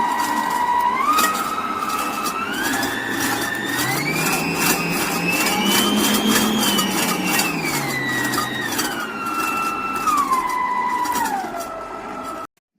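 Dessini Italy 6-speed electric stand mixer running, its motor whine stepping up speed by speed to the top setting, then back down through the speeds. It is switched off abruptly near the end.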